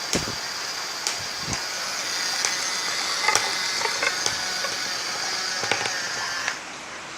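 Small electric drive motors of a home-built robot running with a steady high whine as it pulls a load, with scattered clicks and creaks; it stops about six and a half seconds in.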